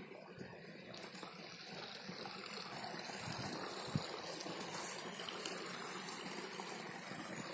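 Water spilling from an inflow in a stone pond wall into the pond: a steady splashing trickle that grows louder over the first few seconds and then holds. There is a single soft thump about four seconds in.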